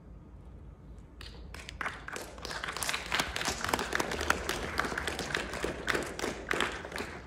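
Audience applauding: a few scattered claps about a second in, building quickly into dense, steady applause.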